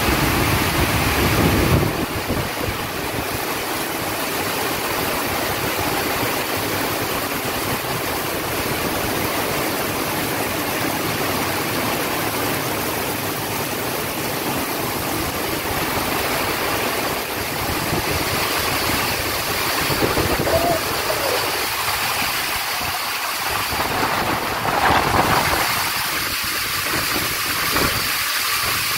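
Heavy rain pouring down on parked cars and paving: a loud, steady hiss of dense rainfall.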